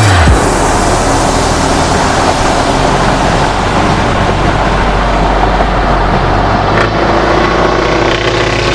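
Scania truck's diesel engine running loudly as the truck drives, with a steady rush of road and tyre noise; the engine note shifts slightly about seven seconds in.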